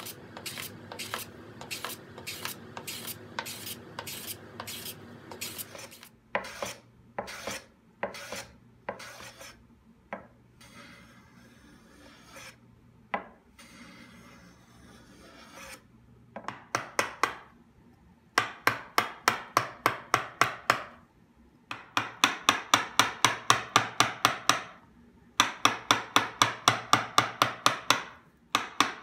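Hand tools working a mahogany board: rhythmic rasping strokes, about two a second at first, then sparser and softer. In the second half come quick runs of sharp strikes, the loudest sounds, from a mallet tapping a carving gouge.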